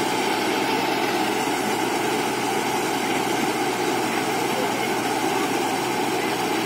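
JCB JS81 excavator's diesel engine running steadily.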